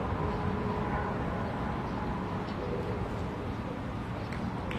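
Steady background noise of an outdoor football match, with a low rumble, faint distant voices and a few light knocks near the end.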